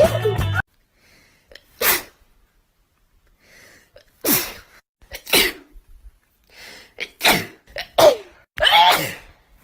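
A woman sneezing again and again in an allergy fit, about six sharp sneezes with quick breaths between them. Rock music cuts off about half a second in.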